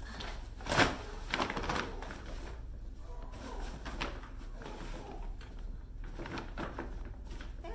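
A folding wagon being opened by hand: its steel X-frame clacks and clicks as it spreads and its nylon fabric bed rustles. A sharp knock a little under a second in is the loudest, with lighter clicks after it.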